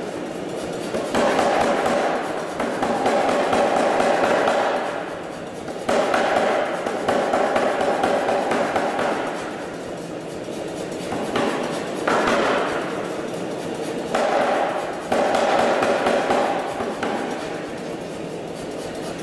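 Background music, with an Anyang self-contained air power hammer striking red-hot steel under it.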